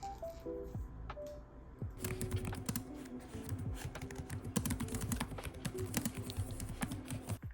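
Typing on a computer keyboard: a fast, dense run of key clicks from about two seconds in until just before the end, over soft background music.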